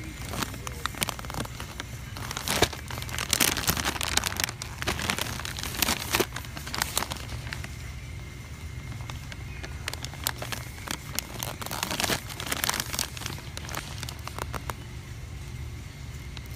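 Plastic snack pouch crinkling and crackling in a hand as it is gripped and turned over, in irregular bursts, over a steady low hum.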